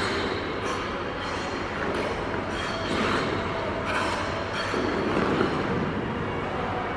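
Figure skate blades scraping and gliding on rink ice in strokes, over the steady hum of a large indoor ice arena.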